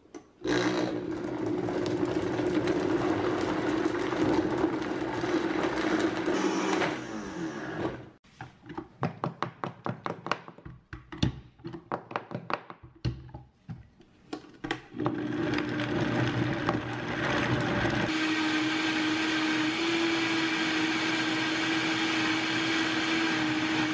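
Countertop blender running steadily, blending a fruit smoothie, and stopping about seven seconds in. For several seconds after that come scattered knocks and clatter as the jar is handled on and off the base. The blender then runs again to the end, its pitch shifting slightly a few times.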